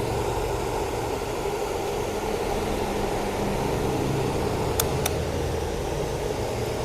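Steady whirring hum of the multi-process MIG welder's cooling fan running while the machine is switched on, with two light clicks about five seconds in.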